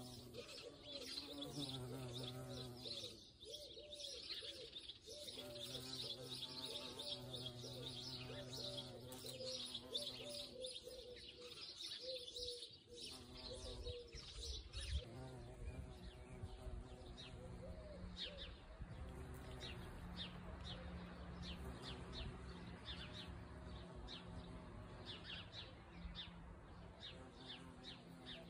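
Small birds chirping throughout, with a dove cooing in repeated phrases over roughly the first half. From about halfway on, a steady low buzz from the wings of a violet carpenter bee working the clary sage flowers.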